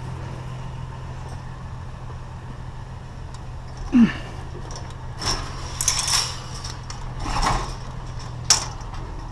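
A vehicle engine running steadily, with a handful of short clanks and rattles of objects being handled, the loudest about four seconds in and another near the end.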